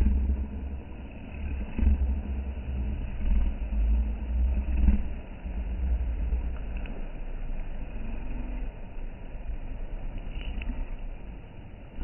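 Wind buffeting the microphone: a gusty low rumble that swells and drops, heavier in the first half and settling lower after about six seconds.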